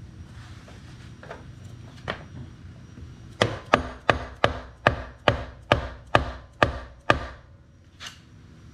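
Hammer tapping from the far side of a 2003 Harley-Davidson Road King's five-speed gearbox to drive out the transmission trap door: a few light knocks, then a quick run of about ten sharp taps, about three a second, that stop a little after halfway.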